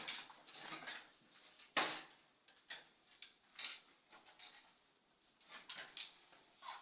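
Faint, irregular handling sounds: scattered clicks and scrapes, with one sharp knock about two seconds in.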